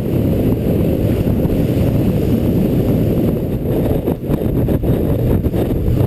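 Strong wind buffeting the microphone on an open boat: a loud, steady low rumble, with wind blowing about 20 mph sustained.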